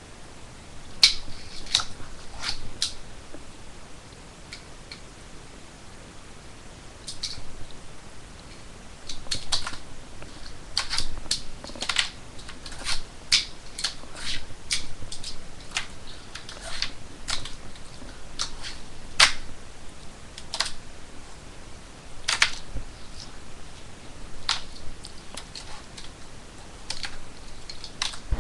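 Fingerboard being popped and landed on a tabletop and a small box ledge: irregular sharp clicks and clacks of the board's tail, trucks and wheels, some in quick bunches.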